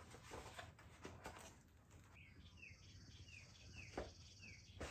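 A small bird calling faintly: a row of about six short, falling chirps a little under half a second apart, over a thin high hiss. One sharp click about four seconds in.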